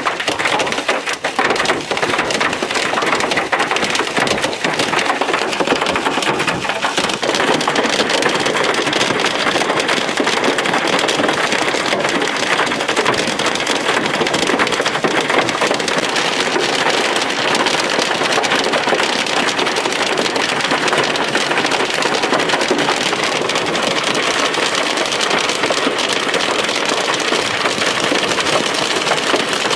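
Wind-driven hail hitting a vehicle's windshield and body, heard from inside the cab: a dense, steady clatter of countless small impacts. The hail is heavy enough to have cracked the windshield.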